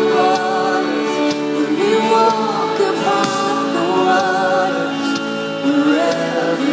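Background music: a song with a sung melody over steady instrumental accompaniment, in the style of Christian worship pop.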